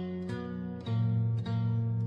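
Background music: a plucked string instrument playing a slow melody, a new note about every half second over a sustained low bass.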